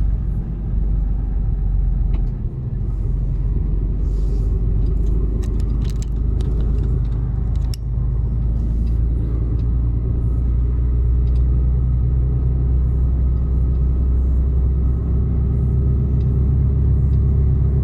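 Mercedes-Benz Actros truck under way, its diesel engine giving a steady low rumble heard from inside the cab, slightly stronger in the second half, with a few light clicks and rattles.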